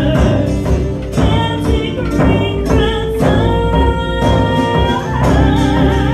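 Celtic folk band playing live: a woman singing over strummed acoustic guitar, with percussion keeping a steady beat.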